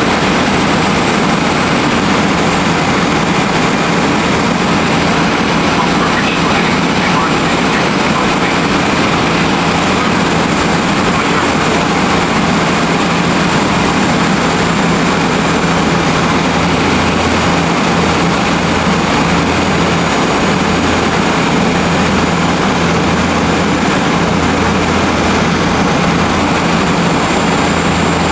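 Steady drone of a DHC-6 Twin Otter's two Pratt & Whitney Canada PT6A turboprop engines and propellers, heard inside the cabin on approach to landing: a constant low hum under a wash of noise, with a faint high whine on top.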